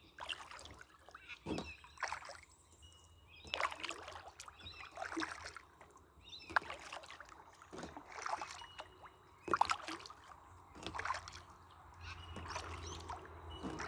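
Canoe paddle strokes in the water: a splash and dribble from the paddle every second or two, with water lapping between strokes.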